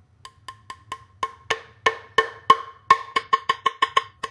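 Ball-peen hammer tapping a crankshaft seal into a small-block Chevy's timing cover: a run of light, ringing metallic taps that grow louder and quicken to about five a second in the second half.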